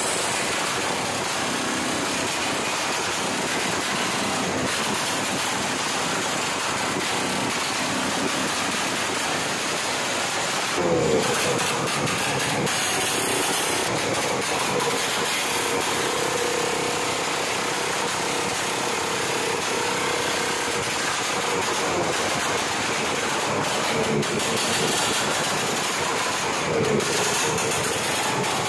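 Modified racing motorcycle engine run hard and loud, with the pitch sweeping up sharply about eleven seconds in, held high for several seconds, and rising again near the end.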